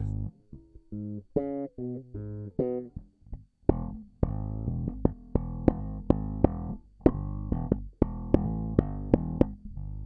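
Samick-built Greg Fairlane electric bass with single-coil pickups, played as a run of short, separate plucked notes. The first few notes are higher and lighter; from about four seconds in it moves to a louder, lower riff with a sharp attack on each note.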